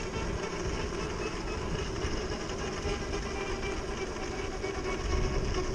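Energica Ego electric motorcycle riding along at low speed on a battery showing 0%: steady electric motor and drive whine over a low rumble of wind on the helmet microphone.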